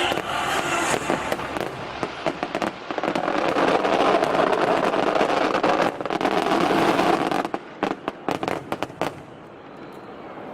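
Fireworks crackling densely in rapid succession, thinning to scattered sharp pops about seven or eight seconds in and dying away near the end.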